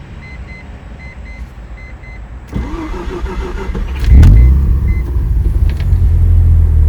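1990 Mazda RX-7's 13B rotary engine cranked by the starter for about a second and a half, catching about four seconds in and settling into a steady idle. A repeated high beep sounds until shortly after the engine starts.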